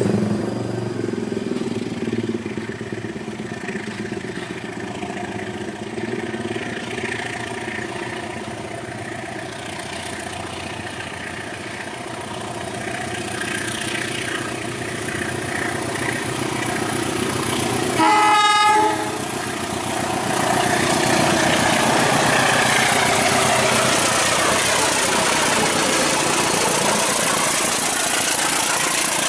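Passenger train hauled by a diesel-electric locomotive running through, with one horn blast lasting about a second, roughly two-thirds of the way in. After the horn the train passes close, and its running noise becomes steady and louder.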